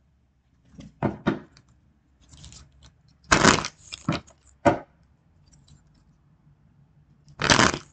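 Tarot cards being shuffled and handled: several short rustling, slapping bursts, the loudest about three seconds in and again near the end.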